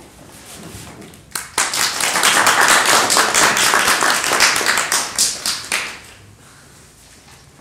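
Small audience clapping: applause breaks out about one and a half seconds in and dies away with a few last claps about six seconds in.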